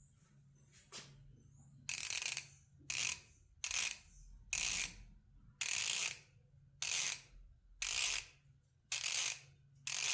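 Craftsman V-Series 1/2-inch drive ratchet swung back and forth, its pawl clicking in short buzzing runs about once a second from about two seconds in, as fresh oil is worked down into the ratchet head.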